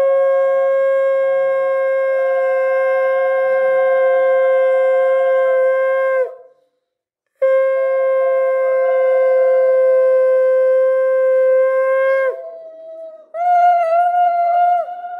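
Conch shell (shankha) blown in two long, steady blasts of about six seconds each, with a brief silence between them. A shorter, wavering tone follows near the end.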